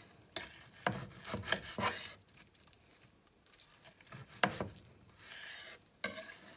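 Steak knife slicing through grilled hanger steak and knocking on a wooden cutting board, with a fork clicking against it: a quick run of sharp clicks at first, then a louder single knock later and another near the end.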